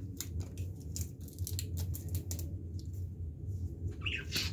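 Small plastic clicks and handling noises as the cap is worked off a spray butter bottle and the bottle is handled, over a steady low hum.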